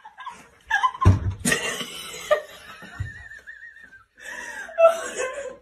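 People laughing, with a long, wavering high-pitched laugh in the middle and laughing voices near the end. A heavy thump comes about a second in and another near three seconds.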